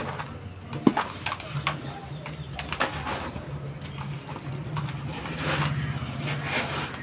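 Dry, dusty concrete-and-sand lumps being crushed and crumbled by hand, with irregular sharp crunches and crackles, the sharpest about a second in. A low steady drone runs underneath.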